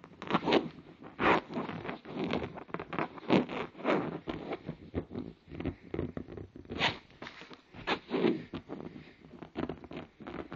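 Fingers scratching and rubbing on a fabric couch arm in quick, irregular strokes, some louder than others: a hand faking the sound of a small hidden animal.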